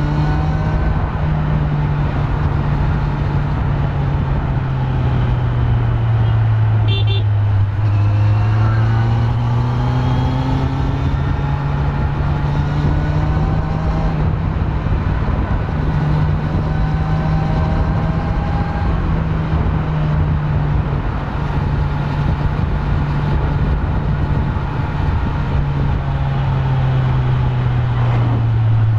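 Kawasaki Z900's stock inline-four engine running while riding, its pitch rising and falling with the revs. A vehicle horn sounds briefly about seven seconds in.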